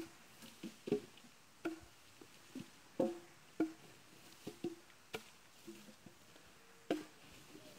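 Chopping strikes on felled eucalyptus wood, about eight sharp knocks at uneven intervals, each with a short ring.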